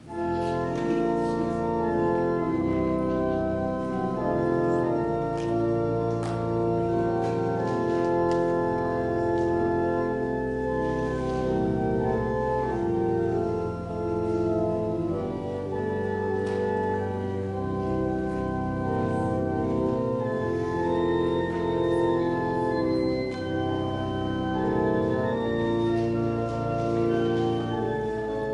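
Church organ playing sustained chords as offertory music, starting suddenly at the outset.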